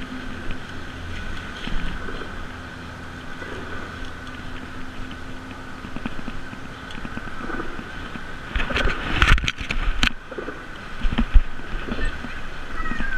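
Bicycle rolling over a muddy, rutted dirt road: a steady rumble of tyre and wind noise on the handlebar camera's microphone, with a few loud jolts and knocks from the bike about two-thirds of the way through.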